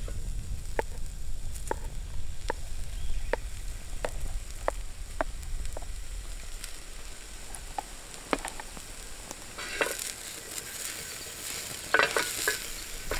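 Meatballs, sausage, mushrooms and onion sizzling in a steel frying pan over a campfire, with a wooden spatula knocking sharply about once a second as food is scraped out of a plastic tub. Later the spatula scrapes and stirs in the pan in short clattering bursts.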